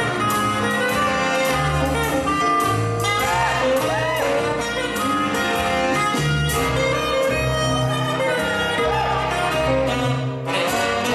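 Jazzy band music with saxophone and brass over a walking bass line and a steady drum beat.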